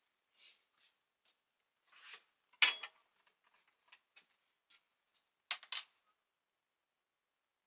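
Scattered light clicks and knocks of hands working quick-grip bar clamps and small parts on a workbench. There is a sharp clink with a brief ring about two and a half seconds in, and a quick run of two or three clicks a little past the middle.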